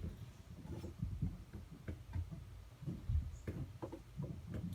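Casablanca Panama ceiling fan running quietly, with an uneven low hum and a few faint ticks; the fan wobbles somewhat.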